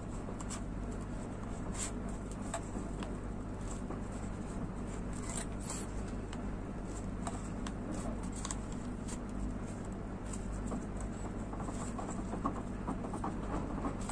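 Paracord strands rustling and rubbing as they are pulled and worked tight by hand, with faint scattered clicks over a steady low hum.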